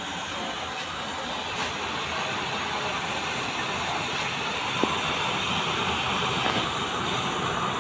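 Homemade forced-air used-oil burner running at strong fire: a steady rushing noise of flame and blown air that grows slightly louder, with one small click about five seconds in.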